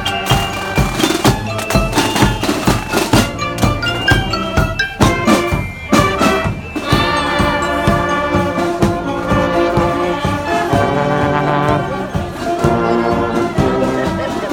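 Marching band playing, with brass, drums and glockenspiel. The drumming is dense for the first half, and from about seven seconds in, held brass notes take over.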